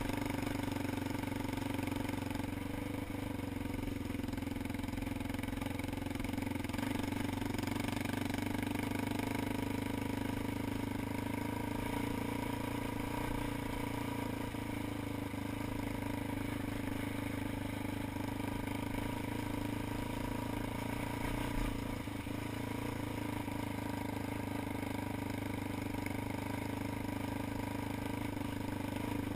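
ATV engine running at a steady, even speed on a trail ride, with one brief knock a little past the twenty-second mark.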